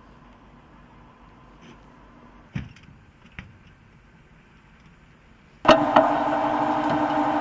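Low background with two sharp knocks near the middle, then, about five and a half seconds in, a BTR-82A armoured personnel carrier's diesel engine cuts in loud and close, running steadily at an even pitch.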